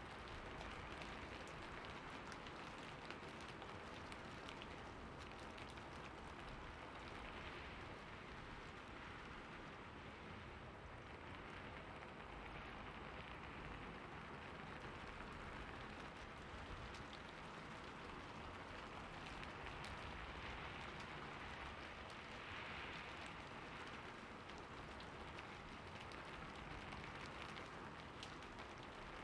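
Steady rain falling: an even hiss with many scattered drop ticks throughout.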